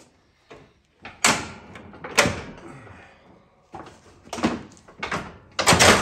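Steel lift-arm pin and mower deck bracket on a John Deere lawn tractor knocking and clanking as the pull pin is jerked out and the deck comes free of its rear lifting arm. There are several separate knocks, and the loudest clatter comes near the end.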